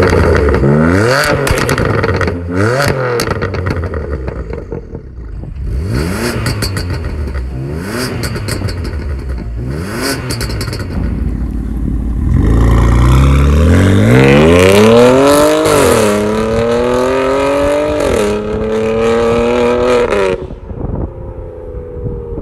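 BMW F80 M3's twin-turbo inline-six through an aftermarket VVS full exhaust system with its valves open: a series of quick throttle blips, each followed by crackling and popping on the overrun. Then a long full-throttle pull through two upshifts, which cuts off sharply near the end.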